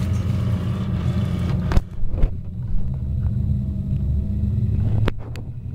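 Boat motor running steadily with a low rumble, a few sharp knocks about two seconds in and near the end.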